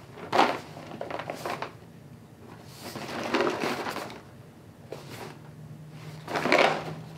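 Cardboard cereal box being handled and turned over, rustling in about five short bursts.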